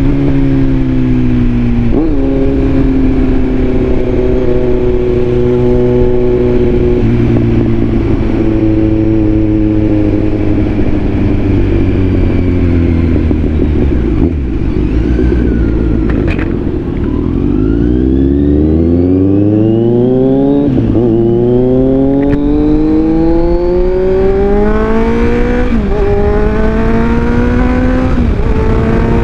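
Kawasaki Z900 inline-four motorcycle engine with its airbox removed, running under way: the pitch sinks slowly as the bike slows, then climbs as it accelerates through the gears, with three upshifts in the second half.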